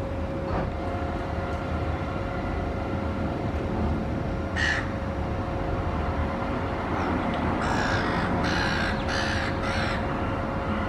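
Little raven cawing: one short caw about halfway through, then a run of four caws near the end, over a steady background hum.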